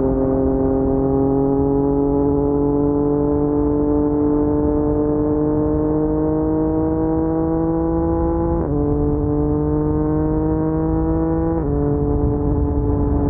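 Yamaha MT-09 inline three-cylinder engine with an Akrapovic carbon full-system exhaust, pulling under gentle acceleration. Its note rises slowly and drops suddenly at two upshifts, one about nine seconds in and one about twelve seconds in.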